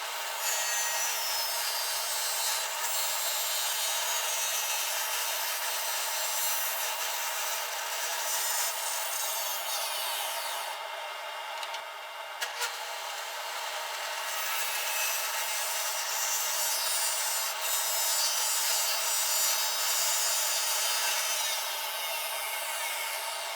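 A power tool cutting stopped grooves, 3/4 inch wide and 3/8 inch deep, into a wooden board. It runs steadily, with a short dip about eleven seconds in.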